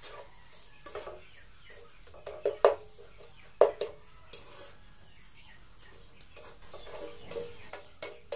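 Wooden spatula scraping and knocking against a nonstick pan while granulated sugar is stirred over low heat as it starts to caramelize. A few sharp knocks stand out about two and a half and three and a half seconds in.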